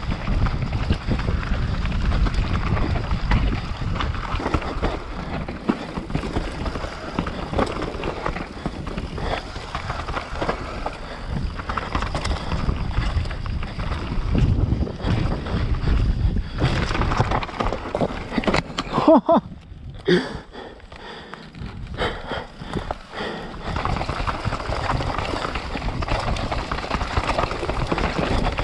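Mountain bike riding down a dirt and rock singletrack: wind buffeting the camera microphone over the tyres rolling on dirt and stones and the bike rattling over bumps. A short loud moment about nineteen seconds in is followed by a brief lull.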